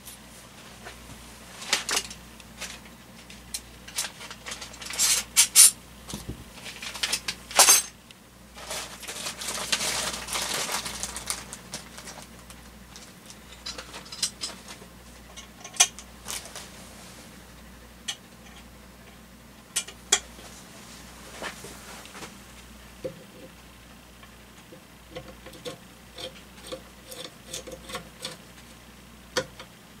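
Scattered clinks, taps and knocks of ceiling fan blades and small metal hardware being handled while the blades are fitted to the fan, with a few seconds of rustling about a third of the way in.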